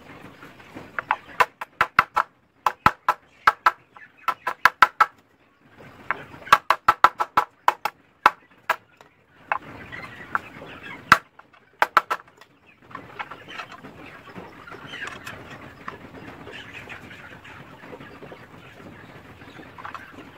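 Chickens clucking: bursts of quick, sharp notes for about twelve seconds, then softer, continuous clucking.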